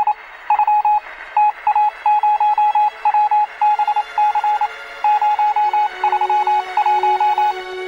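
Morse code: a single high beep keyed rapidly on and off in quick dots and longer dashes, over a light radio-like hiss. A low held musical note comes in near the end.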